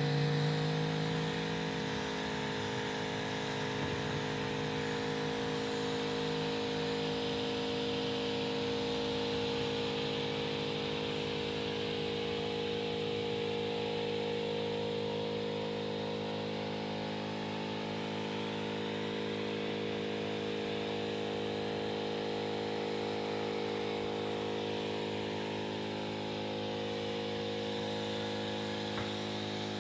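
A small engine running steadily at an even speed: a constant hum with a hiss over it.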